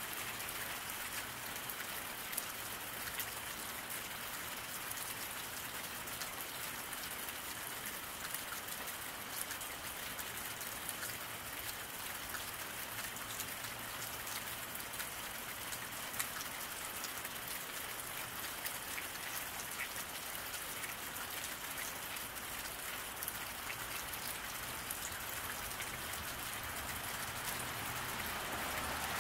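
Steady rain falling on a paved road, a constant hiss dotted with many small drop ticks.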